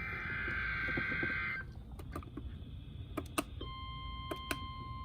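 NOAA Weather Radio alert coming over the air. A buzzy burst of SAME digital header tones ends about a second and a half in. After a short pause, the steady 1050 Hz weather radio warning alarm tone begins near the end. Computer keyboard and mouse clicks are scattered throughout.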